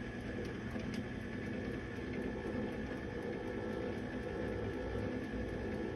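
Compact Showtime countertop rotisserie oven running, a steady motor hum as the spit turns the chicken.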